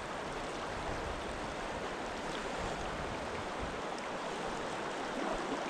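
Steady rush of a shallow river riffle flowing around a wading angler.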